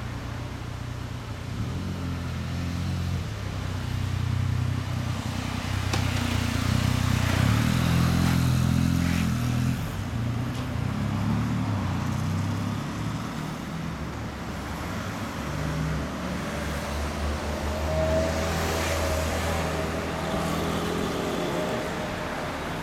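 Honda CB1300 Super Touring's inline-four engine idling through a Moriwaki aftermarket muffler, a steady low exhaust note that gets louder and a little higher for a few seconds in the middle.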